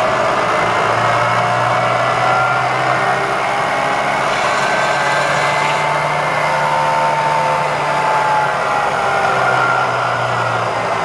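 Bridgeport Series II Special milling machine's 2 hp motor and variable-speed spindle drive running: a steady hum with a whine that glides slowly in pitch as the spindle speed is wound up from its bottom speed of 60 RPM toward the top of its range.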